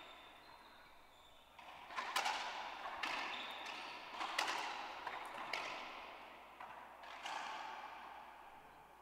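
A racquetball bouncing on the wooden floor and off the walls of an enclosed court: about five sharp knocks, spread over several seconds, each followed by a long ringing echo.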